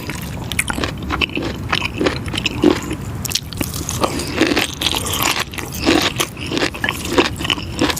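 Someone biting and chewing pickled fish skin close to the microphone: a dense, irregular run of sharp clicks and crackles.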